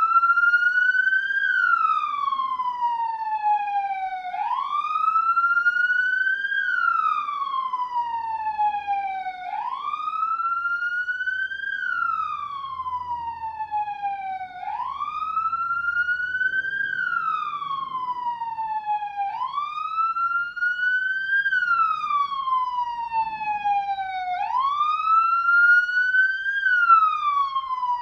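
Police siren in wail mode: a single tone that rises quickly and falls slowly, repeating about every five seconds.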